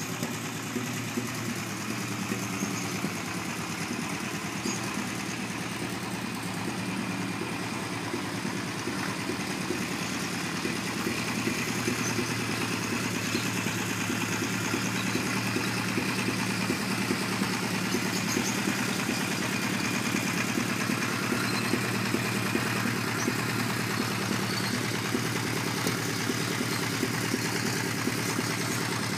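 1983 Honda CB900F II Bol d'Or's air-cooled inline-four engine idling steadily, a little louder from about ten seconds in.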